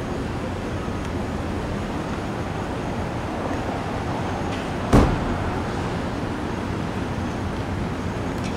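Steady road traffic noise, with one sharp thump about five seconds in.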